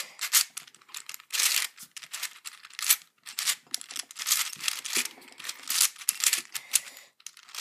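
A 3D-printed PLA 3x3x5 puzzle cube with hand-sanded pieces being scrambled by hand: quick layer turns give rapid plastic clicks and scraping clacks in bursts, with brief pauses between them.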